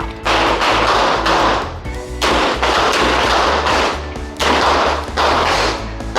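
Smith & Wesson revolver being fired in quick runs of shots, four loud spells of rapid fire each lasting about a second or more with short pauses between. Background music plays underneath.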